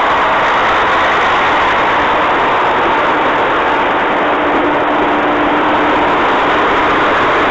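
Yufuin no Mori diesel railcar train running, a loud steady noise of engine and wheels on rail with faint steady tones and no change in level.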